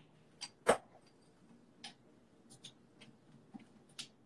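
Clicks and knocks of a Dedolight lamp head and its cable connector being handled and hooked up. One sharp knock comes under a second in, followed by about half a dozen faint, scattered clicks.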